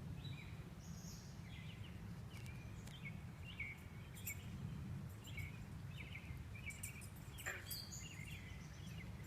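Outdoor swamp sounds after dark: many short, high chirping calls from small animals along the water, scattered and overlapping, over a steady low rumble. One sharper, louder call stands out near the end.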